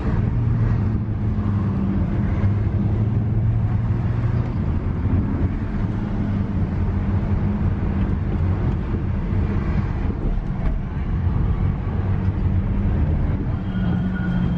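Car engine running steadily with road noise: a low drone.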